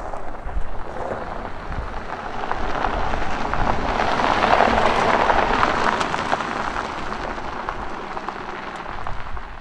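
Jaguar F-Type Project 7 rolling past on a gravel lane: tyres crunching on loose gravel over a low rumble, growing louder to a peak about halfway through and then easing off.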